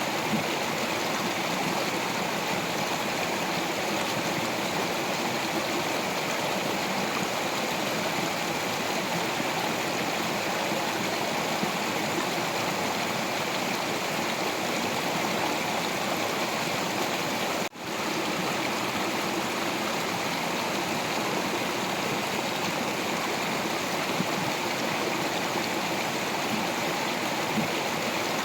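Stream water rushing and splashing over rocks in a steady, continuous flow, with a momentary dropout about two-thirds of the way through.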